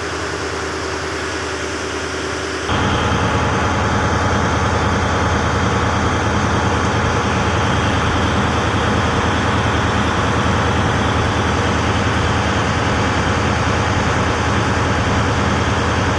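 A boat's engine running steadily, heard from on board, with a low heavy hum; it jumps suddenly louder about three seconds in and then holds steady.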